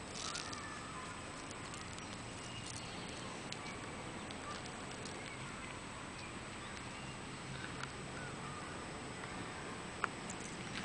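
Quiet outdoor ambience: a steady faint hiss with faint bird chirps, and a few small clicks of gravel as a small child's hands pick through the pebbles, at the start and again near the end.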